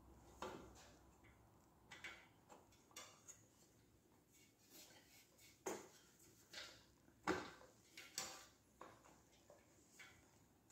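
Scattered light clicks and knocks of hard motorcycle parts being handled and fitted, about a dozen over several seconds, the loudest a sharp knock about two-thirds through.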